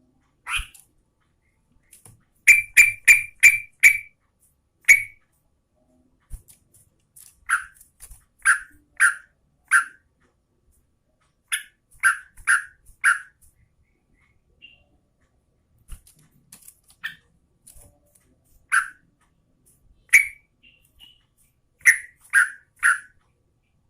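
Yellow-vented bulbul (trucukan) calling with short, sharp, loud chirps, mostly in quick runs of three to five notes, separated by pauses of a second or two.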